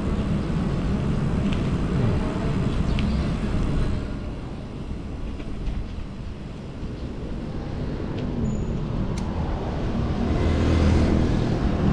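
Road traffic noise, a steady wash of passing vehicles, easing off for a few seconds in the middle and growing louder again near the end.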